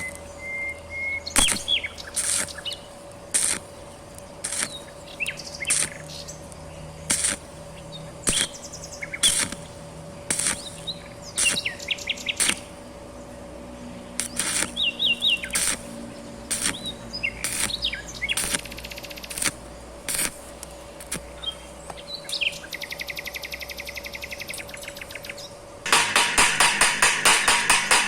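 Birds chirping, over sharp taps that come about once a second. A fast trill follows, and near the end a loud, rapid rattling starts.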